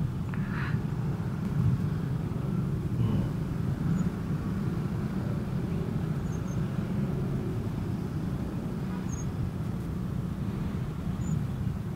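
Steady low rumble of a vehicle on the move: engine, road and wind noise with no distinct engine note.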